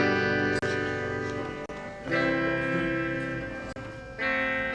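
Strummed guitar playing the opening of Hawaiian hula music: three chords about two seconds apart, each ringing out and fading.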